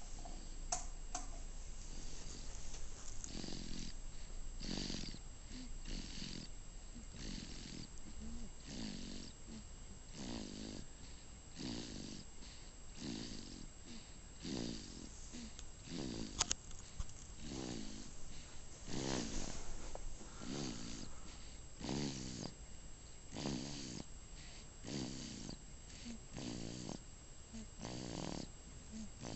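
Baby snoring in sleep: a short rattly snore on each breath, repeating about every second and a half.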